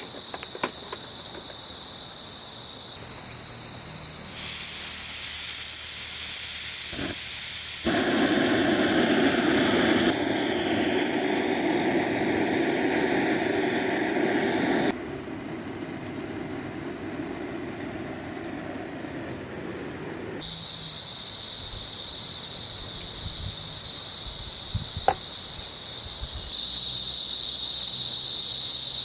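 A steady chorus of crickets and other insects, changing abruptly several times as the scenes change. From about 4 s to 15 s a louder steady hiss sits over it, then the insects carry on alone.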